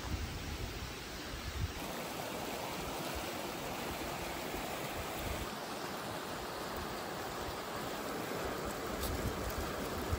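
Steady rush of running water, with low buffeting of wind on the microphone.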